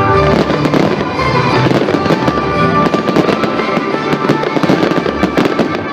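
Aerial fireworks bursting and crackling, a dense run of sharp reports one after another, with music playing under them.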